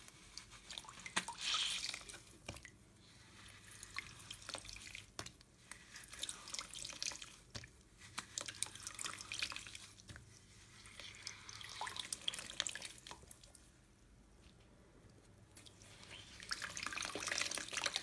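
Slime being worked by hand, giving wet, crackly clicking and popping in repeated bouts every two or three seconds.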